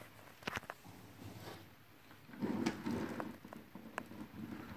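Plastic toys being handled on a play mat: a few sharp clicks and knocks, with a short low rumble about halfway through.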